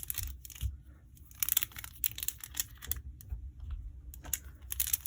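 Plastic links of a large Wacky Tracks snap-and-click fidget chain clicking as it is twisted and bent, in several quick bursts of sharp clicks.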